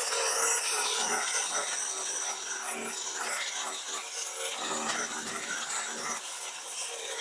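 Irregular rasping and scraping of wood and brush, as overgrown branches and vines are cut and pulled away.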